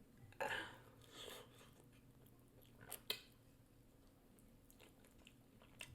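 Near silence: room tone broken by a few faint, short soft noises about half a second, one second and three seconds in.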